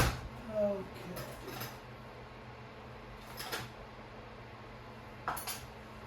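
A points file scraping in a few short strokes between the Homelite Super XL chainsaw's breaker points, cleaning corrosion off the contacts to restore spark. A sharp click comes at the very start, followed by a short squeak.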